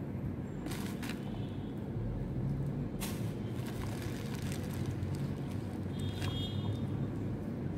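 Steady low background hum, with a couple of brief sharp crackles about a second in and about three seconds in, and a short high squeak about six seconds in.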